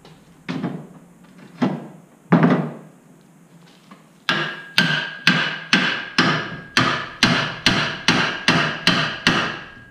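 Hammer blows driving a long wooden handle into a steel shovel head's socket. Three spaced strikes come first, then from a little past the middle a run of about a dozen steady strikes, roughly two a second, each leaving a brief ringing tone.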